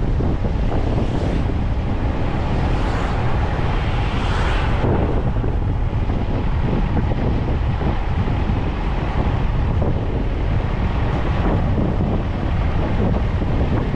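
Wind rushing over the microphone on top of the steady low rumble of a vehicle driving at speed, with no pitched engine note standing out. The hiss swells briefly about four seconds in.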